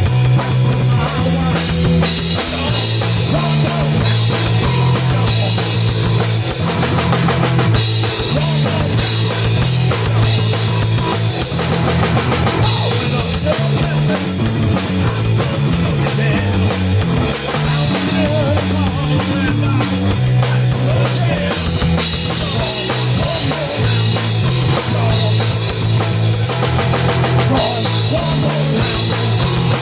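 Live band playing rock music: drum kit and a stepping bass line to the fore, with no singing in this passage.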